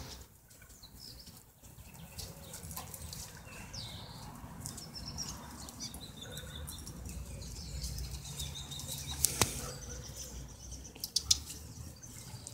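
Outdoor ambience: a steady low rumble of wind buffeting the microphone, with faint high bird chirps and a few sharp clicks.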